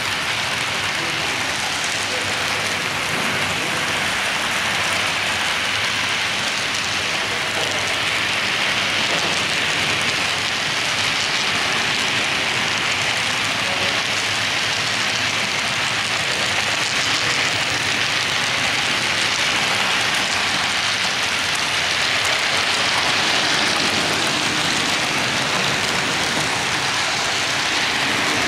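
Model freight train rolling along the layout track: a steady rushing hiss of many metal wheels on the rails, swelling slightly about two-thirds of the way through.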